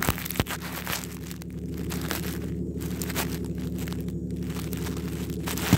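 1997 Jeep Grand Cherokee's 4.0 straight-six running at steady revs through an exhaust with no catalytic converter and a welded dual-chamber Flowmaster-style muffler, as the Jeep drives past. Scattered clicks on the microphone over it.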